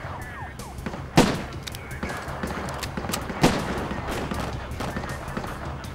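Gunshots in a firefight: two loud shots about a second and about three and a half seconds in, with fainter single shots scattered between them.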